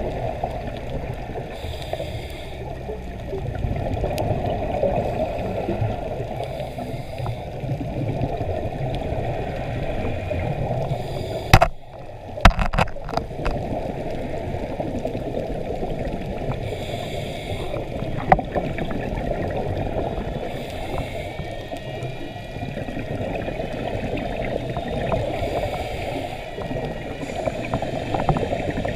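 Muffled underwater rumble heard through an action camera's waterproof housing, with short bursts of scuba regulator bubbles every few seconds. A few sharp knocks about twelve seconds in, like something tapping the housing.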